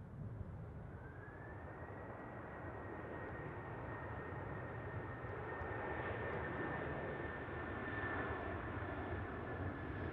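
Distant Qantas Airbus A330 jet engines spooling up on the runway: a whine rises about a second in and then holds steady over a low rumble that slowly grows louder.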